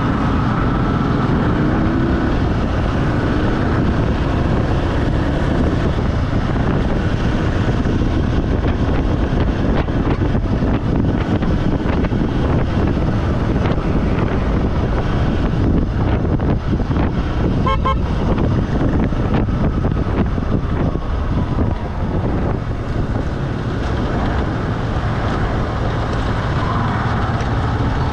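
Steady rumble of a vehicle travelling along a road, with a short horn toot about eighteen seconds in.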